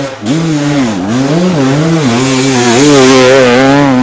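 Dirt bike engine running close by, its pitch dipping and rising again and again as the throttle is worked, then holding steadier and louder about two to three seconds in.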